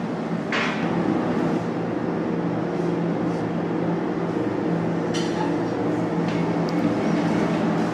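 A steady low mechanical hum, with a brief hiss about half a second in and a couple of faint clicks later on.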